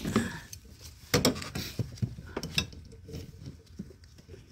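Gloved hands working a rubber heater hose and its clamp onto a plastic coolant connector pipe in an engine bay. A quick run of sharp clicks and knocks, then softer rustling and handling.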